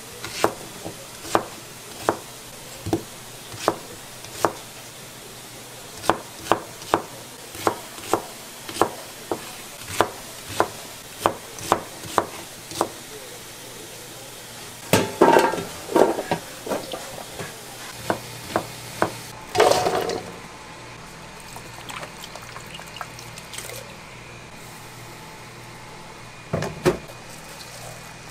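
Kitchen work: a long run of sharp knocks, one or two a second, then two noisy bursts of water pouring or splashing about halfway through and a single knock near the end.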